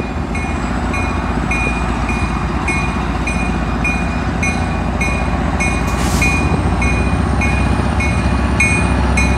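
Tri-Rail commuter train running past with a steady low rumble. A bell dings about twice a second over it, and there is a short hiss about six seconds in.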